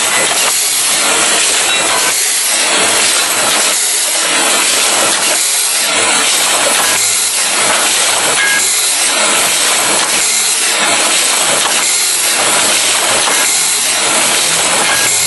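Automatic rotary tube filling and sealing machine running, a loud steady hiss with a faint pulse about once a second as it cycles through the tubes.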